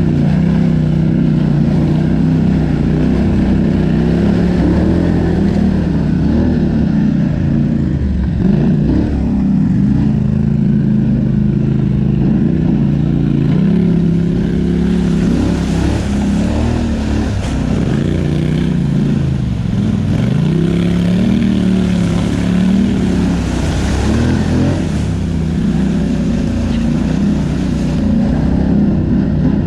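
ATV engine running while riding a trail, its pitch rising and falling with the throttle. A hiss builds up through the middle stretch.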